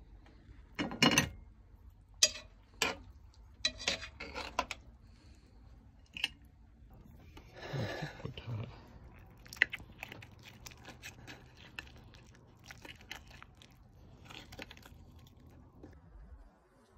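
Utensils knocking and clinking against a cast-iron Dutch oven and a china plate, then a run of lighter clicks and scrapes of a knife and fork on the plate as roasted chicken leg is cut.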